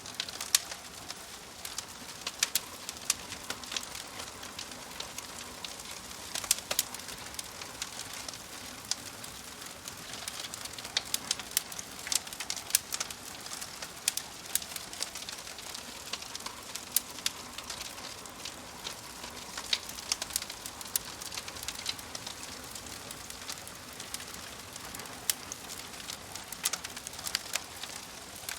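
Wood fire crackling in a fireplace: a steady hiss of burning logs with frequent sharp, irregular pops and snaps.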